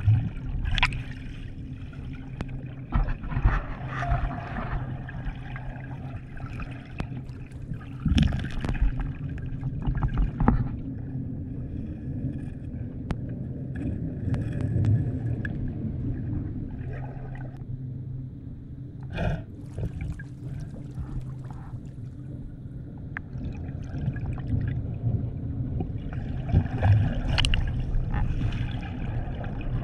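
Muffled underwater sound through a camera's waterproof housing: water sloshing and gurgling over a steady low hum, with several knocks and bumps against the housing.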